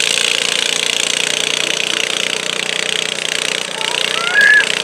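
John Deere garden tractor engine running steadily under load as it drags a weight-transfer pulling sled in a stock-class tractor pull. A brief high-pitched call rises over it near the end.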